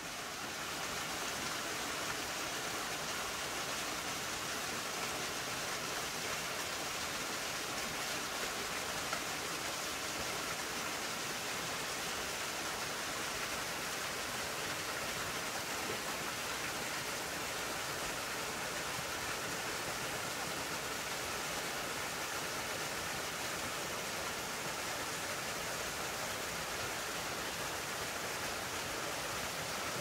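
Steady rushing of water tumbling over creek cascades.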